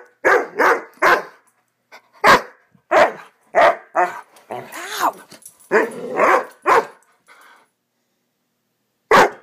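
Young Greater Swiss Mountain Dog barking in quick, short barks, about a dozen over seven seconds, then a short pause and one more bark near the end. The barks are part of an excited puppy play fit, a 'bad dog run'.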